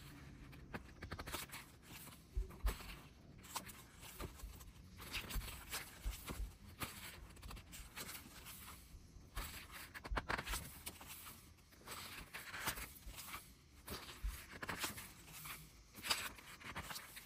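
Pages of a glossy photobook being turned one after another: paper rustling and sliding, with many small clicks and taps of long acrylic nails against the pages.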